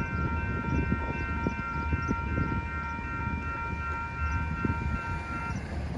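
Union Pacific locomotive's multi-chime air horn holding one long chord that cuts off about five and a half seconds in, over the low rumble of the passing freight train.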